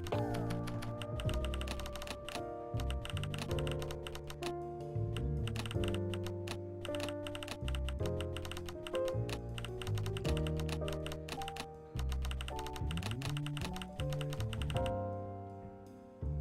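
Instrumental background music with held, changing chords and a rapid, continuous clicking mixed through it; the music thins out and fades near the end.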